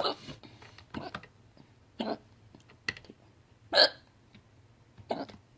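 A person hiccuping, a string of short, sharp hiccups about one a second, the loudest a little past the middle.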